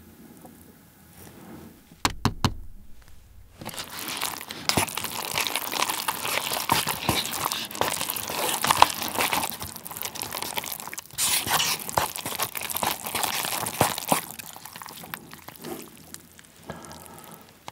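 Chopsticks stirring sticky, sauce-coated Jjapaghetti instant noodles in a paper cup: a dense wet squelching and scraping that starts about four seconds in and eases off near the end. A few sharp clicks come about two seconds in.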